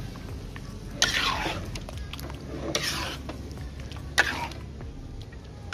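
Metal spatula scraping and stirring fish curry in an aluminium wok, with a few sharp strokes about a second in, near the three-second mark and just past four seconds, over a low steady hum.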